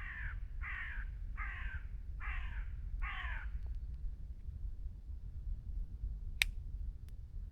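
A crow cawing five times in quick succession, harsh calls about half a second apart, followed near the end by a single sharp click.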